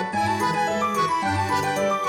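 Background music: a bright, lilting instrumental tune of changing notes over a bass line, with a keyboard sound.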